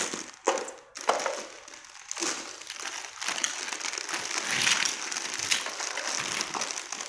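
Clear plastic bag crinkling and rustling as toy pieces are pulled out of it, with a few sharp knocks of plastic pieces.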